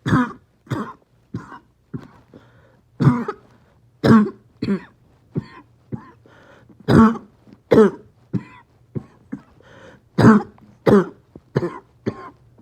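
A person with COPD in a coughing spasm: harsh, barking coughs coming back to back in short runs of two or three, with breathy gasps between them.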